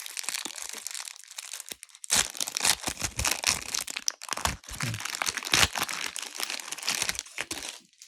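Plastic wrapper of a cereal-box Pokémon trading card pack crinkling and crackling as it is handled and pulled open, lighter at first and much busier from about two seconds in.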